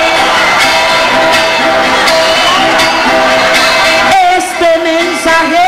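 A dense, loud crowd din over steady musical accompaniment with regular sharp strokes. About four seconds in, a man's voice comes in singing with drawn-out, sliding notes, opening a trova paisa verse.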